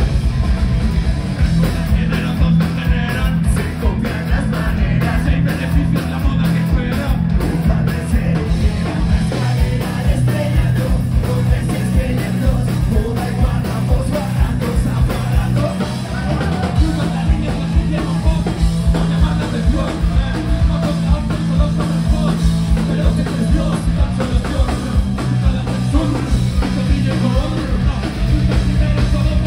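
Live band music with a steady driving drum beat and bass under several vocalists singing into microphones.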